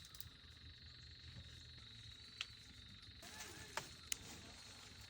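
Near silence: a faint steady high-pitched insect drone from the surroundings, with a few soft clicks in the second half.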